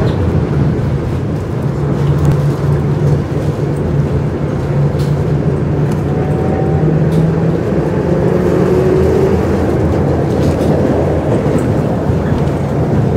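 Tram in motion, heard from inside the passenger car: a steady loud rumble of the wheels on the rails and the car body, with a low hum through the first half.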